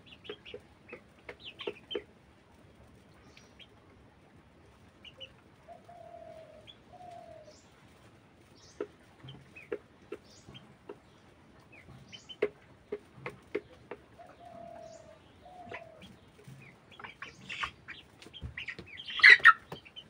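Broiler chickens clucking softly in short scattered notes, with two pairs of longer, low drawn-out calls in the middle. A louder noisy burst comes about a second before the end.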